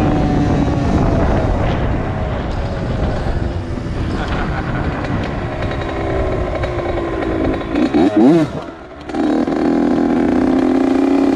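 Honda CR80 two-stroke single-cylinder dirt bike engine running under riding, its pitch falling as it slows. About eight seconds in it gives a quick wavering rev, then settles into a steady idle.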